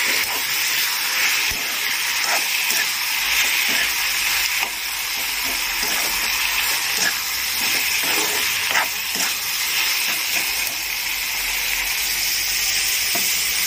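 Chopped ridge gourd, tomato, onion and green chillies sizzling in oil in a metal kadai. A steel spoon stirs them, with a few sharp scrapes and knocks against the pan over the steady sizzle.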